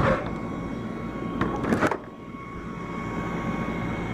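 A house window being slid open, with a scraping rush right at the start and a second one about a second and a half in. Then the outdoor HVAC unit's high-pitched screech comes through louder: a single steady whistling tone over a steady mechanical hum.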